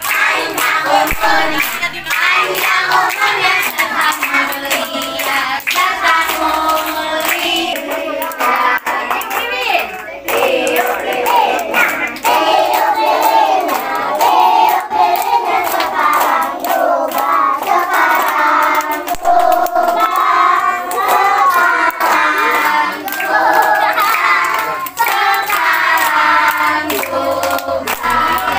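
A group of children and adults singing a birthday song together, clapping their hands along as they sing.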